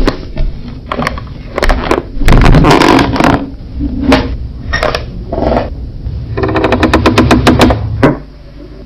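Wooden floorboards creaking under weight in a string of irregular creaks. About six and a half seconds in comes a long, fast, crackling creak of rapid clicks that lasts about a second and a half. The audio is bass boosted, so a heavy low rumble lies under each creak.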